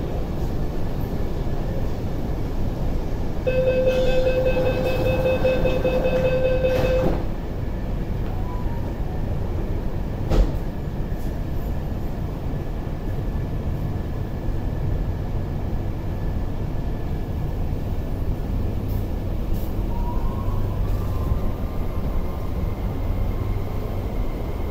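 Inside an MTR SP1900 (IKK) metro car standing at the platform, with a steady low rumble. About three seconds in, the door-closing warning beeps rapidly for about three and a half seconds as the doors shut, and a single knock follows a few seconds later. Near the end a faint rising whine sets in as the traction motors start the train moving.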